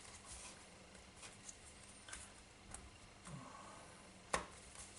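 Faint handling noises of a product box being worked open by hand: light rubbing and scattered small clicks, with one sharper click about four seconds in.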